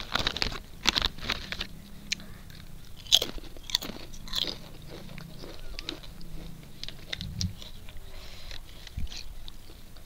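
Someone biting and chewing Uncle Chips potato chips: a quick run of crisp crunches in the first second or two, a few more sharp bites around three to four and a half seconds in, then softer chewing.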